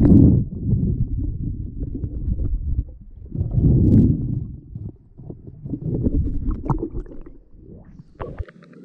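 Swimming heard through an underwater action camera: a muffled, low rushing of water against the housing that swells in about three surges, then breaks off near the end as the camera comes up out of the water.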